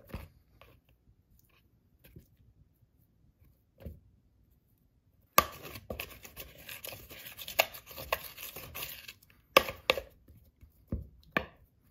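A metal spoon stirring a stiff, shaggy bread dough in a mixing bowl, with irregular scraping and sharp knocks of the spoon against the bowl. It is mostly quiet for the first five seconds, then busy and uneven from about halfway through.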